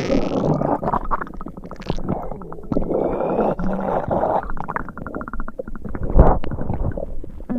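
Upset stomach rumbling and gurgling in irregular bursts with rapid bubbly clicks, and a louder deep pop about six seconds in.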